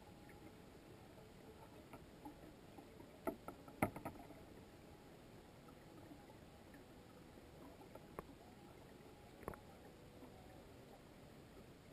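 Faint, muffled underwater ambience picked up through a GoPro's waterproof housing, with a short cluster of sharp clicks about four seconds in and two more single clicks later.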